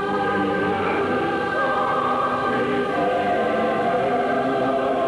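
Film score of a choir singing slow, sustained chords, shifting to a new chord about three seconds in.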